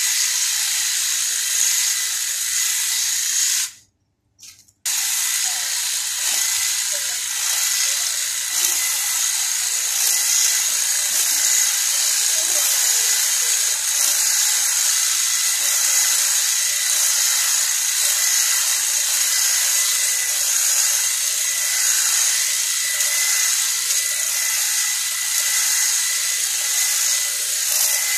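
Makita cordless hedge trimmer running with a steady high whine as its blades cut through leafy, grass-like plants. The sound cuts out for about a second, about four seconds in.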